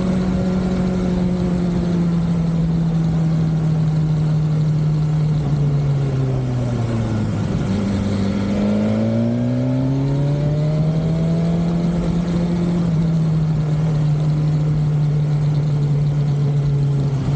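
BMW sport-touring motorcycle's inline-four engine running on the road. Its pitch drops for a few seconds about halfway through as the bike slows, then climbs back and holds steady as it pulls away again.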